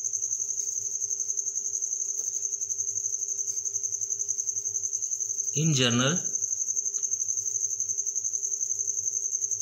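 A cricket chirping, a steady high trill pulsing several times a second. A man's voice speaks briefly about six seconds in.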